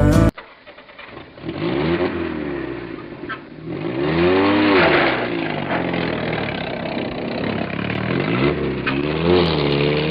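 Truck engine revving, its pitch rising and falling in repeated swells, strongest about five seconds in and again near the end. It is the engine sound given to a toy off-road truck.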